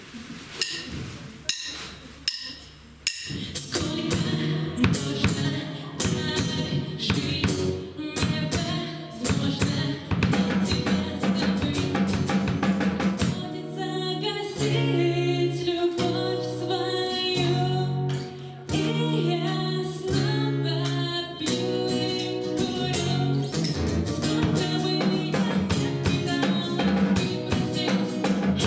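A live song with drum kit, starting after a few sharp clicks about three seconds in, then a full band with a woman singing.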